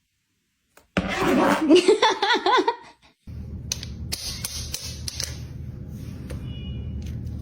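About a second in, a burst of laughter lasting about two seconds, with a wavering, up-and-down pitch. It is followed by a steady low hum with scattered clicks and a few faint high chirps.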